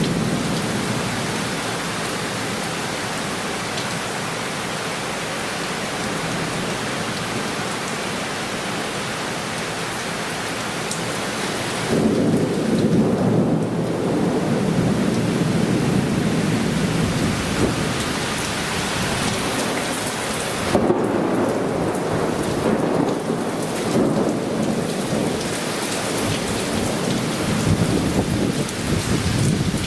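Heavy cloudburst rain pouring down, with thunder. The downpour gets noticeably louder about twelve seconds in.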